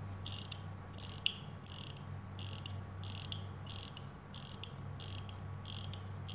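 Crown of a Soviet Molnija mechanical pocket watch being hand-wound: the ratchet click runs in short bursts of rapid fine clicks, one burst with each twist, about one and a half a second. A steady low hum lies underneath.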